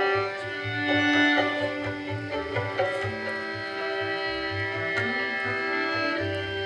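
Music with Indian instruments: a sitar-like plucked string melody over a tabla-like drum rhythm.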